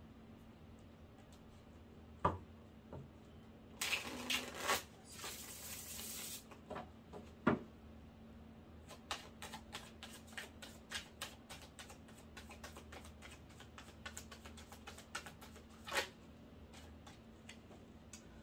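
A deck of tarot cards being shuffled by hand: a rustling burst about four seconds in lasting two seconds or so, then a long run of quick, light card clicks, with a few single louder taps.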